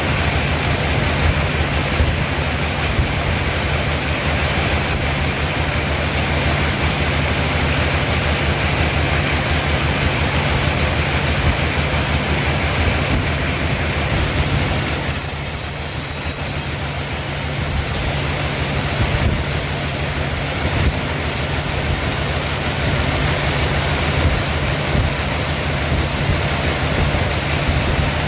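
Sawmill machinery running: a steady, loud mechanical drone with a low hum and a wide hiss, shifting briefly about halfway through.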